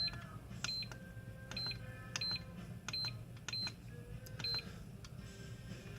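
Hobby LiPo battery charger beeping at each button press as its settings menu is stepped through: about seven short, high beeps, each with a click, over the first four and a half seconds.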